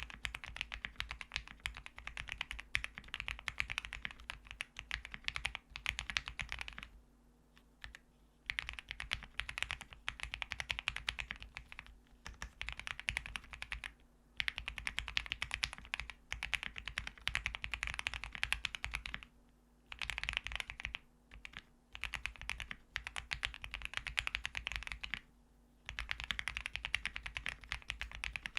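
Typing on an Owlab Link65 custom mechanical keyboard with lubed Gateron Ink Black linear switches on an FR4 plate and GMK keycaps: dense runs of quick key clacks in bursts, broken by short pauses about 7, 14, 20 and 25 seconds in.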